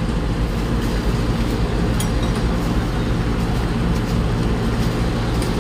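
An engine idling steadily, with a sharp clink about two seconds in.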